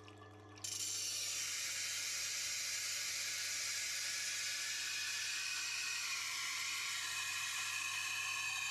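Steel knife edge grinding on the Tormek T8's CBN 80-grit wheel: a steady hiss over the machine's low motor hum, starting abruptly under a second in. The coarse wheel is taking metal off the bevel to grind out a chip.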